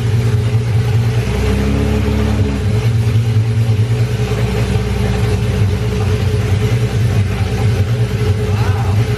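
BMW M30B35 3.5-litre inline-six with individual throttle bodies running steadily, newly fired up on the stock ECU. There is a brief change in its note about a second and a half in.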